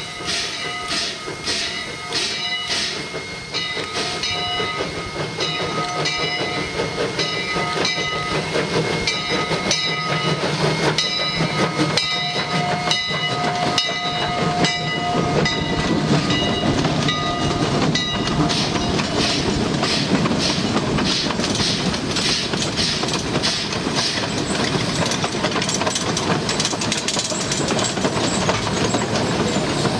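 Sumpter Valley Railway 2-8-2 steam locomotive No. 19 working past at close range, its exhaust chuffing in a steady beat with several held ringing tones over it. From about 18 seconds in, the freight cars roll by with a dense clatter of wheels over the rail joints.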